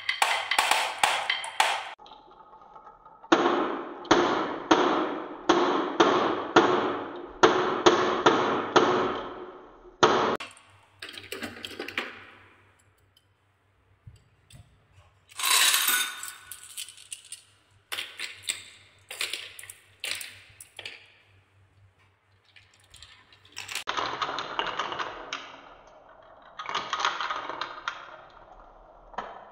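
Glass marbles rolling and rattling down wooden marble-run chutes, clicking over the wavy tracks and clinking against each other in several long runs. A brighter, sharper clatter comes about halfway through, with short quiet gaps around it.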